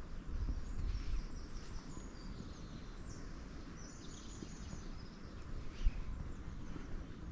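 Songbirds singing short high phrases in the trees, over the low scuffing of footsteps on a paved path. A single sharp knock comes about six seconds in.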